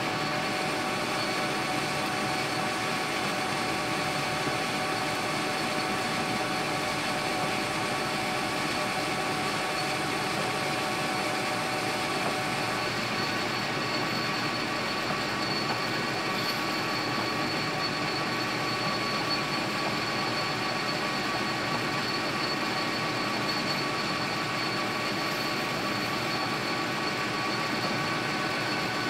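Metal lathe running steadily with a brass bushing spinning in its chuck: a constant motor-and-gear hum with several steady whining tones, one of which drops out about halfway through.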